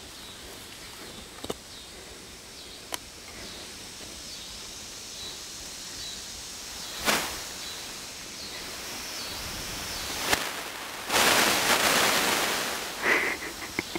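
Quiet outdoor background with a few sharp clicks, then a loud rustling noise of about two seconds near the end.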